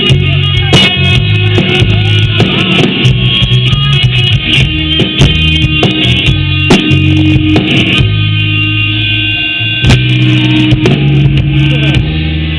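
Rock music: electric guitar playing over a drum kit and a steady bass line.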